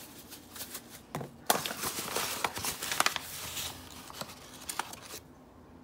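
Pepper and flour being shaken and sprinkled over raw chicken breasts: a run of quick clicks and rustling that stops about five seconds in.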